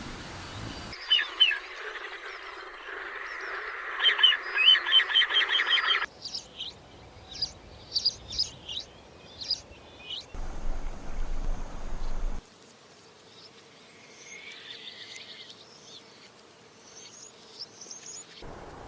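Songbirds chirping and calling in a string of short clips that change abruptly. A fast run of repeated chirps comes a few seconds in. Single sharp high notes follow, then a short stretch of hiss and low rumble, and fainter chirps near the end.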